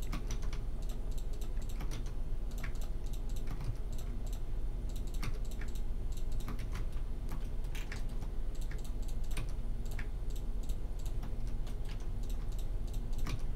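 Irregular computer keyboard keystrokes and mouse clicks, single sharp clicks a second or so apart: Blender shortcut keys (F, Shift, A) pressed while selecting and filling faces. Underneath is a steady low hum.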